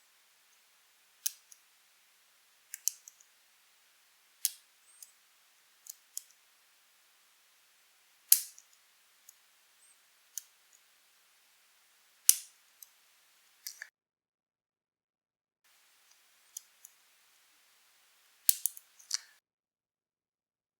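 A lock pick and tension wrench working the pins of a pin tumbler Euro cylinder: sharp metallic clicks at irregular intervals, about one every second or two, some ringing briefly, with a quick cluster near the end. The pins are clicking as they set during single-pin picking.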